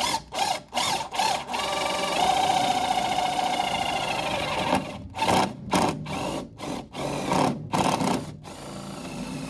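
Cordless drill boring through a wooden beam with a wood bit, the first stage of drilling through to a steel purlin behind it. It starts in short trigger pulses, runs steadily with a whine for about three seconds, then goes back to short pulses.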